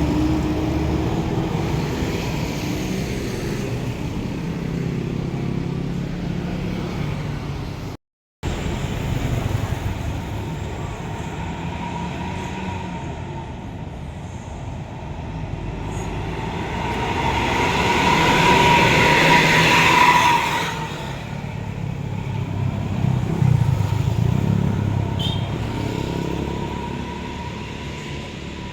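Road traffic passing at a roadside, with large diesel vehicles such as buses going by. The sound cuts out completely for a moment about eight seconds in. Later a vehicle builds up to a loud close pass and then falls away.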